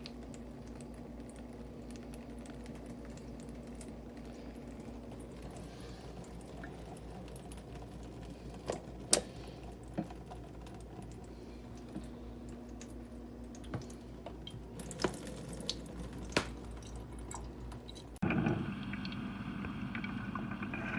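Hamilton Beach 12-cup FrontFill drip coffee maker brewing: a low steady hum with scattered drips and small clicks. About three seconds before the end, a cut brings in a louder, steady rushing noise.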